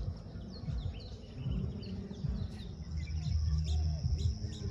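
Birds chirping in short quick calls, with a steady high insect trill coming in about three seconds in, over a low, uneven rumble.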